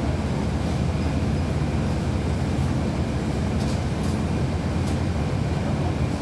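Cummins ISL9 diesel engine of a 2012 NABI 40-SFW transit bus running steadily, heard from inside the passenger cabin as a low, even rumble, with a couple of faint rattles.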